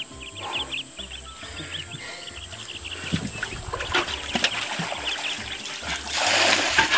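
Background music under wild animal calls, with a fast run of high chirps in the first few seconds. About six seconds in comes a loud rush of splashing water.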